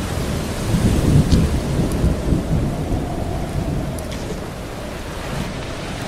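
Sea waves surging against a rocky shoreline: a deep rumble builds about a second in and fades over the next few seconds, over a steady hiss of moving water.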